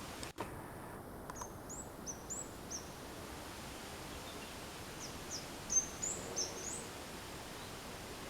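A small bird calling: short, high, thin chirps in two quick series, the second louder, over a steady hiss of background noise.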